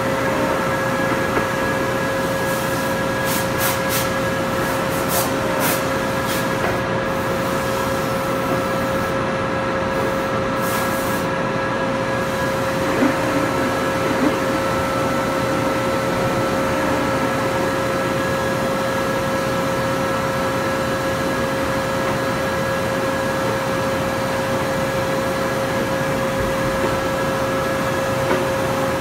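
Large Poreba TR135 engine lathe running with a steady machine hum and a constant held tone. A few light clicks come in the first several seconds.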